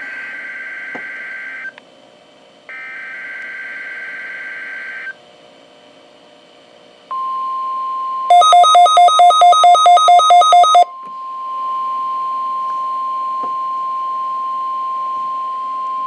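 NOAA Weather Radio test heard through a Midland WR120 alert radio's speaker. First come two SAME digital header bursts, harsh warbling data tones about two seconds long with a short gap between. About seven seconds in, the steady 1050 Hz warning alarm tone starts and holds. A second later the radio's own alert sounds over it: a loud, rapid beeping at about four beeps a second that lasts about two and a half seconds.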